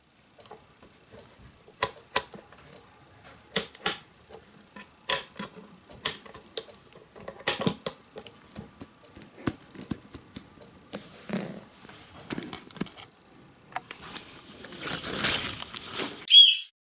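Irregular light clicks and taps, then a swelling rustling hiss, ending with a brief loud sweeping tone.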